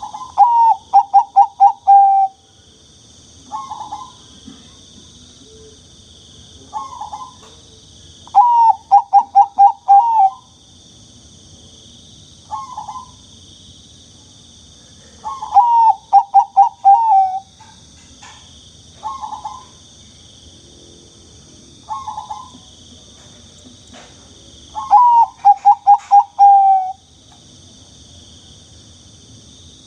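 Zebra dove (perkutut, Bangkok song type) cooing: four bursts of quick, rolling repeated coos, each about two seconds long, with short single coos between them, over a steady high-pitched hiss.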